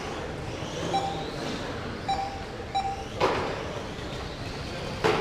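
GT12 1/12-scale electric racing cars running on an indoor carpet track, their motors whining. Three short electronic beeps come about one, two and three seconds in, and there are two sharp knocks, about three and five seconds in.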